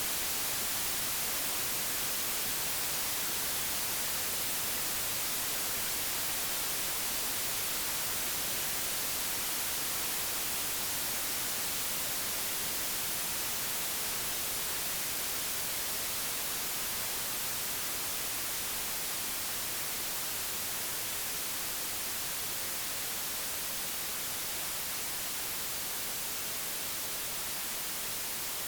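Digitally generated white noise: a steady, even hiss across all pitches with no tones or clicks, easing very slightly lower in level toward the end.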